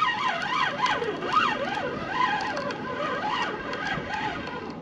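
Fishing reel cranked steadily to bring up a hooked fish, its gear whine gliding up and down in pitch about once a second with each turn of the handle.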